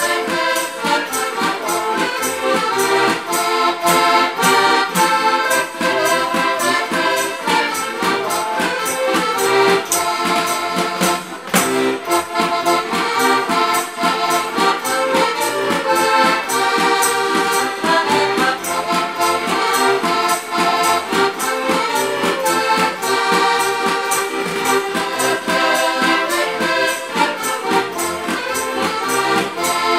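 Diatonic button accordions (Slovak heligónky) playing a folk tune together, with a steady bass-and-chord rhythm under the melody.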